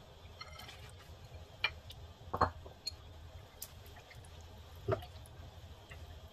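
Silicone-coated wire whisk stirring thick cream sauce in a metal pot: wet squishing and sloshing with a few sharp knocks and clicks against the pot, the loudest about two and a half seconds in, over a low steady hum.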